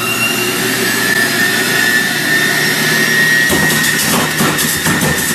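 Uber Appliance UB-CJE 800-watt centrifugal juicer running at its second speed setting: a steady motor hum with a high whine. About three and a half seconds in, a rough, uneven grinding joins as fruit is pushed down the feed chute onto the spinning cutting disc.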